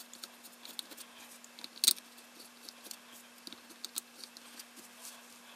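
Small metal screws clicking and tapping against the plastic of an AR-15 handguard as they are set by hand into its holes to mount a rail, with one sharper click about two seconds in.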